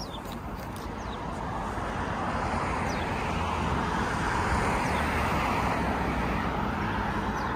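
Road traffic: a car passing on the road alongside, its tyre and engine noise swelling to a peak around the middle and easing a little after.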